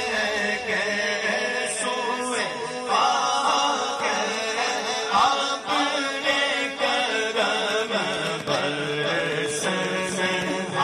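A man chanting an Urdu naat (devotional poem in praise of the Prophet) solo into a microphone, in a long melody whose pitch slides and wavers.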